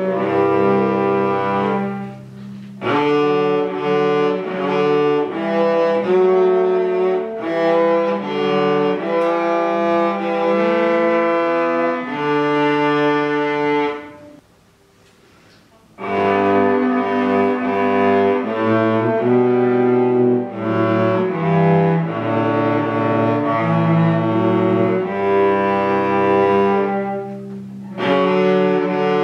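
Two cellos playing a bowed duet, a higher melody over a lower line in sustained notes. The phrases break off briefly about two seconds in and near the end, with a longer pause of about a second and a half a little before halfway.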